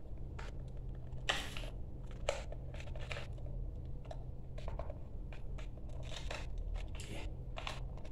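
Stiff single-core wires rustling, scraping and clicking against the wall back box as they are bent and pushed into it by hand, in short irregular bursts. A steady low hum runs underneath.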